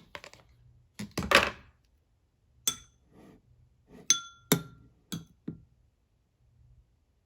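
Clear slime being handled and pressed, giving a series of sticky clicks and pops with a crackling burst about a second in. Two of the clicks, about four seconds in, ring briefly like a clink.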